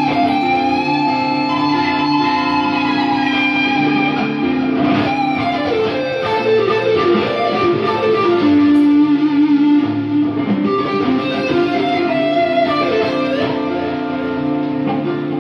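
G&L Legacy Strat-style electric guitar with Seymour Duncan pickups, played through an EVH 5150 III amp: a pentatonic blues lead with long held, bent notes and a quicker run of notes around the middle, over a steady lower chord part.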